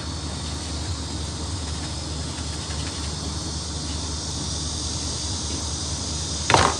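Steady hiss of background noise with a low hum underneath, and one short soft sound near the end.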